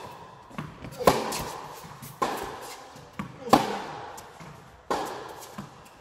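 Tennis rally: rackets strike the ball back and forth, a sharp hit about every second and a quarter with fainter bounces in between. Each hit rings on in the echo of the indoor tennis hall.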